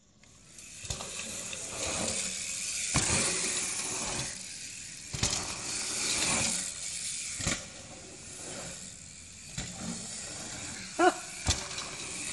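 Bikes rolling over a dirt trail: tyres crunching and a rush of wind that swells and fades, with rattles and clicks from the bike. A brief high squeal near the end.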